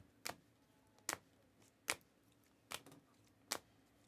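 Rigid plastic toploader card holders clicking against one another as the cards are flipped through one at a time: five short sharp clicks, evenly spaced a little under a second apart.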